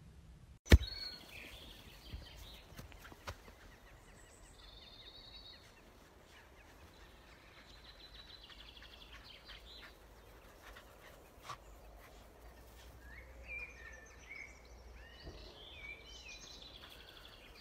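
Quiet outdoor ambience with small birds chirping now and then, more of them near the end. A single sharp click comes less than a second in.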